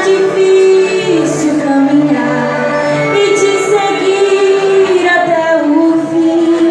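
A woman singing a slow worship song with musical accompaniment, holding long notes.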